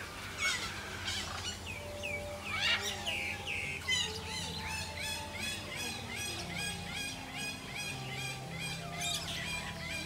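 Many birds calling at once: overlapping chirps and louder calls, with one falling call repeated about twice a second through the middle.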